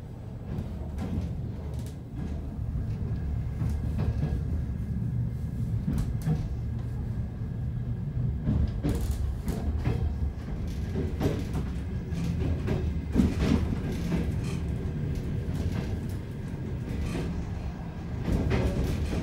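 Passenger train running on the rails: a steady low rumble with irregular clicks and clatters of the wheels over the track, heard from inside the train.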